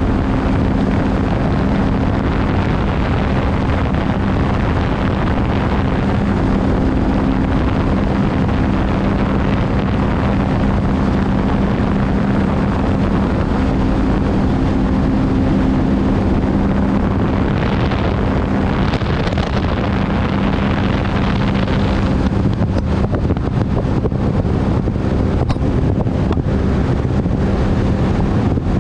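Sea-Doo GTR 230 personal watercraft running at a steady high speed: an even engine drone over the rush of wind and water. A few short knocks come in over the last several seconds.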